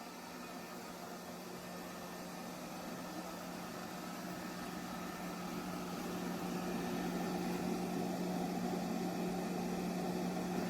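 Vacuum cleaner motor running with a steady low hum, growing louder about halfway through and cut off abruptly at the end.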